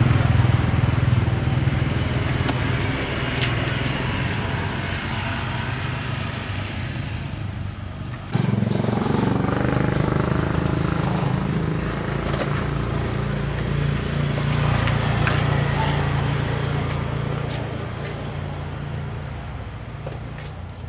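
A small engine running steadily with a low hum. It gets suddenly louder about eight seconds in and fades gradually near the end.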